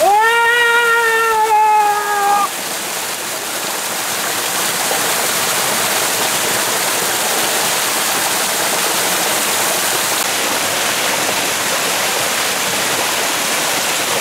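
A man's long held cry, sliding slightly down in pitch, for about the first two seconds. It gives way to a small waterfall pouring and splashing into a stream, a steady rushing sound.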